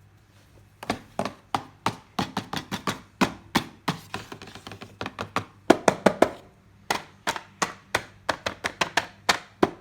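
Small hard toy pieces and packaging being handled: quick, irregular clicks and taps, several a second, starting about a second in.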